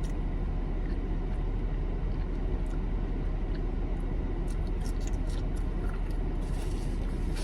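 Steady low rumble of an idling car, heard inside the cabin, with a few faint clicks and rustles in the second half.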